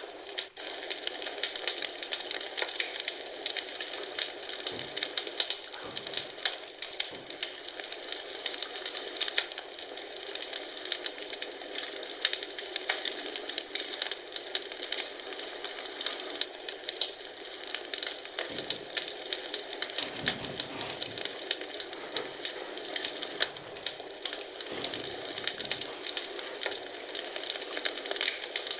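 Wood fire burning in a fireplace, crackling and popping continuously over a steady hiss, with a few soft low thumps now and then.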